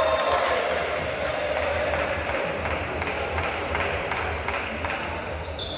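A volleyball struck hard about a third of a second in, then a busy din of players' shouts and short knocks echoing in a large sports hall as the rally ends.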